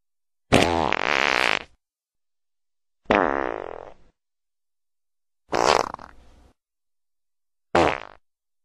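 Four separate fart sound effects, each a buzzing, wavering rasp with silence between; the first is the longest and the last is short.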